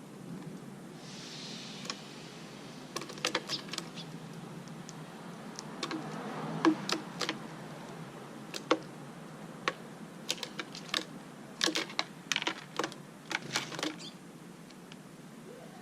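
Irregular sharp clicks and taps in quick clusters, after a brief hiss about a second in.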